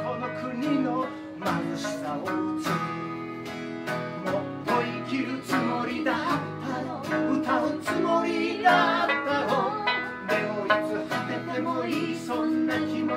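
Live acoustic folk song: a man singing over strummed acoustic guitar, with a sanshin plucking and an accordion playing along.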